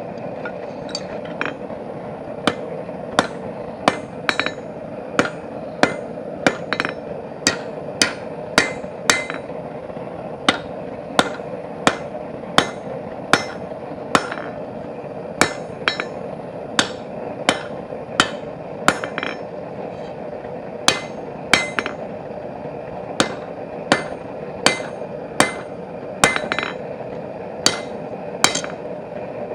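Hand hammer striking steel bar stock on an anvil, forging it: a string of sharp blows at a little over one a second with brief pauses, drawing out a tang for a hinge part. A steady drone runs underneath.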